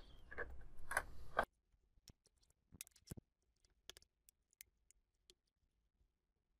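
Lenovo G50-70 laptop's plastic case being handled and pressed together: faint rubbing with a few clicks for about the first second and a half, then scattered light plastic clicks and taps.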